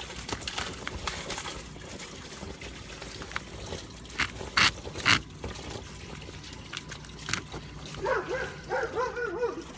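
Water trickling steadily out of a siphon hose draining the pool, with a few sharp knocks in the middle. Near the end a high, wavering whine sounds for about a second and a half.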